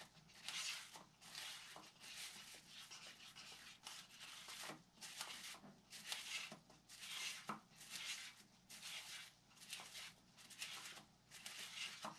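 Faint, repeated rubbing strokes, about two a second, as wet epoxy is worked into carbon fibre cloth laid in a mould by hand.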